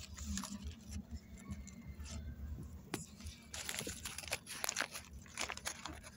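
Irregular rustling and crackling, many short clicks over a low rumble, growing busier in the second half.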